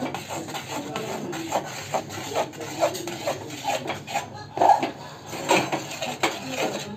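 Metal spoon stirring jowar flour into hot water in a metal pot, with repeated irregular scrapes and clinks against the pot's sides as the flour is mixed into a crumbly dough.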